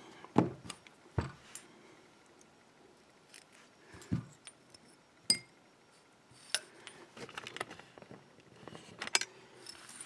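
Scattered light metallic clicks and taps of small brass lock parts being handled and knocked against a plastic pin tray, with a short cluster of quicker clicks about three-quarters of the way through.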